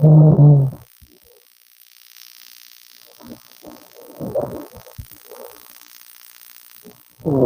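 A young woman snoring in her sleep: a loud, buzzing snore dies away within the first second, quieter breathing with soft fluttering follows, and the next loud snore starts right at the end.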